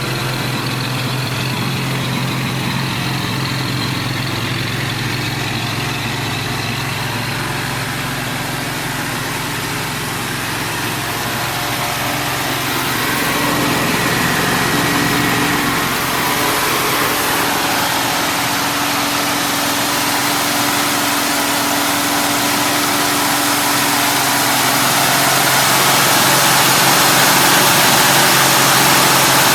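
Car engine idling steadily, with a hiss that grows stronger through the second half.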